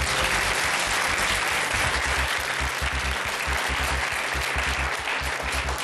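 Studio audience applauding a correct answer, the clapping easing off near the end.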